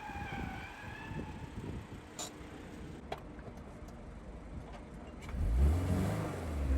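Toyota GR86's flat-four engine revving up about five seconds in, a low rumble rising in pitch and getting louder. Before that there is a quieter stretch with a couple of faint clicks.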